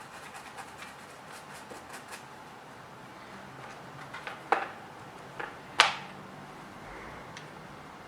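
Small hand tool working at a phone's ear speaker grill: light ticking and scratching, then a few sharp clicks around the middle, the loudest just before two-thirds of the way through, as the clogged mesh is scrubbed clear.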